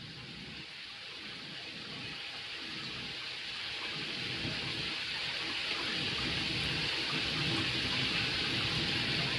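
Running water, a steady hiss that grows gradually louder.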